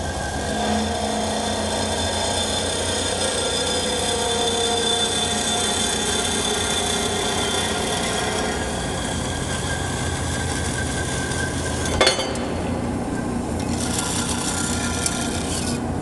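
DoALL 916A automatic horizontal bandsaw running, its blade cutting metal stock with a steady rasping hiss and whine over the machine's hum. A sharp clank about twelve seconds in, after which the cutting hiss drops away for a couple of seconds and then returns.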